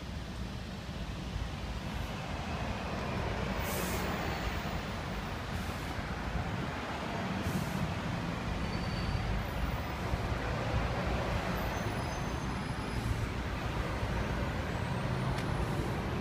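Steady road traffic passing, with a few brief high hisses, typical of a bus or lorry's air brakes, between about four and eight seconds in.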